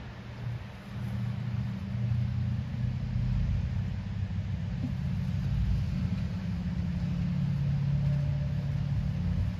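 A motor vehicle engine running with a steady low hum. It grows louder about a second in and then holds level.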